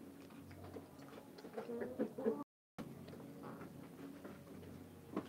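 Domestic hens clucking softly, with a short run of low calls about two seconds in and scattered light clicks. The sound drops out for a moment near the middle.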